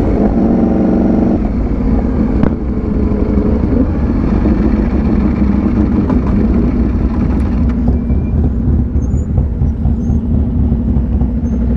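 Ducati Panigale V4 S's V4 engine running as the bike rolls along and slows to a stop, then settling to a steady idle in the last few seconds.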